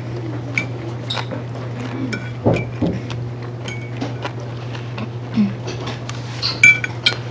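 Dishes and cutlery clinking: scattered light clinks and taps, several in quick succession near the end, over a steady low hum.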